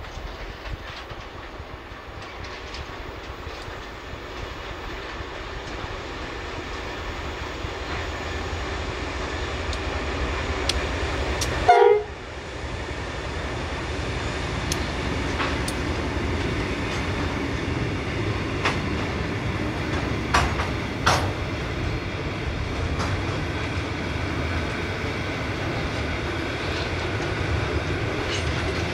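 Narrow-gauge freight train with GE diesel-electric locomotives passing. The engine rumble grows as the locomotives approach, and a brief loud blare sounds about twelve seconds in as they go by. Then tank-container wagons roll past with a steady wheel roar and occasional sharp knocks.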